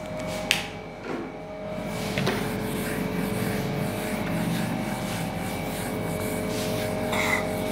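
A sponge duster rubbing back and forth across a whiteboard, wiping off marker writing, starting about two seconds in after a short click.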